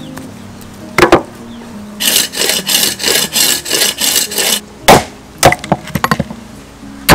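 Hacksaw cutting through a cow leg bone, a run of quick back-and-forth strokes, about four a second, lasting a couple of seconds. Sharp knocks on the wooden chopping block come just before and after the sawing.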